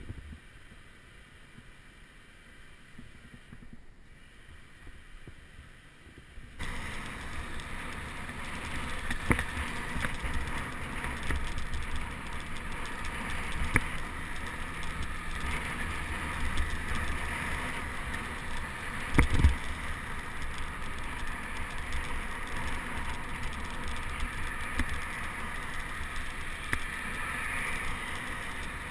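About six seconds of quiet, then steady wind and road noise from a camera on a moving bicycle, with car traffic running alongside and a few sharp knocks, the loudest about two-thirds of the way in.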